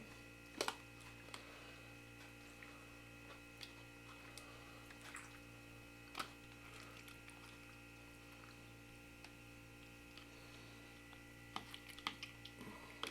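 Faint steady electrical hum, with a few scattered light clicks and taps: one sharper click about half a second in, another about six seconds in, and several close together near the end, from handling jars and chicken while packing quart jars.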